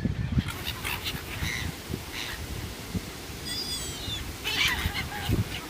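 Seagulls calling: a scatter of short, high squawks, with a run of several falling cries about three and a half seconds in and a louder cluster of calls near the end.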